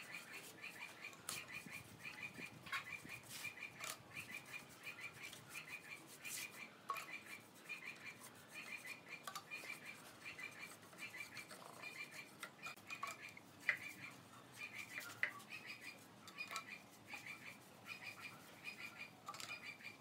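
Scattered light clicks and taps of a paintbrush working against a small metal can and the wooden slats. Behind them a high chirp repeats a couple of times a second throughout.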